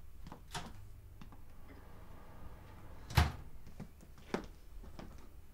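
A single sharp thump about three seconds in, with a few faint taps and clicks before and after it.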